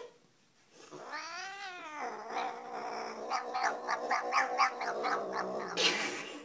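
Domestic cat yowling. About a second in comes one rising-and-falling yowl, then a longer yowl that wavers several times a second, ending in a short hissy burst.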